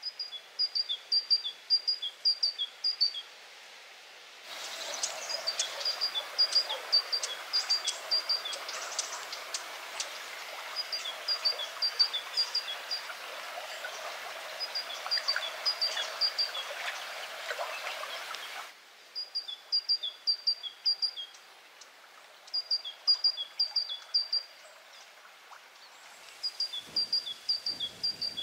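A songbird repeating a short song again and again, each phrase a quick run of alternating high and lower notes lasting two or three seconds. From about four seconds in to about eighteen seconds, a steady rush of running water sits under the song. There are a few brief low rumbles near the end.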